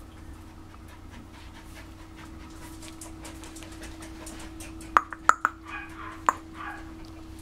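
A 50-day-old puppy panting quickly, with a few sharp clicks and short squeaks about five to seven seconds in.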